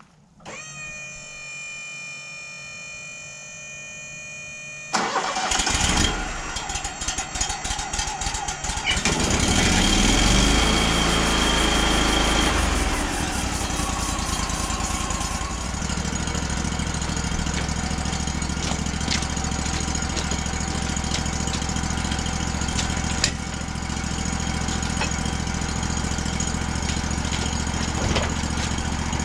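The engine of a Wood-Mizer LT35 Hydraulic portable sawmill being started. First a steady high tone with several pitches, then cranking about five seconds in. The engine catches and runs loud, then settles into a steady idle about fifteen seconds in.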